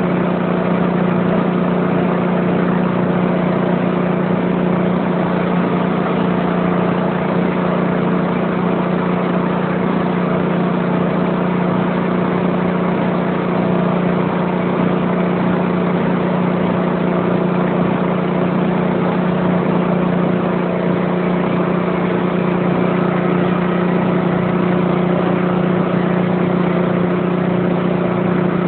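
An engine running steadily at one constant speed: an unbroken hum that does not rise or fall.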